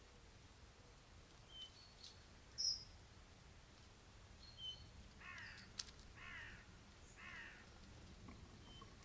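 A crow cawing three times, about a second apart, faint and far off. Short high-pitched chirps from small birds come before it, the loudest about two and a half seconds in.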